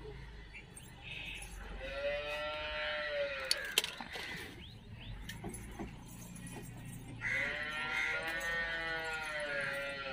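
A cow mooing twice, each a long call that rises and then falls, about two seconds in and again near the end.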